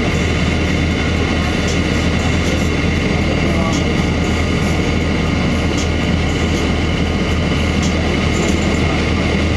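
2002 Blue Bird CS transit bus running steadily under way: the Cummins ISC diesel and driveline give a steady low hum over road noise. A faint tick comes about every two seconds.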